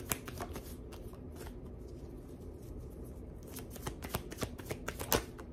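Tarot deck being shuffled by hand: a soft, irregular patter of cards flicking and slapping against each other, with one louder snap near the end.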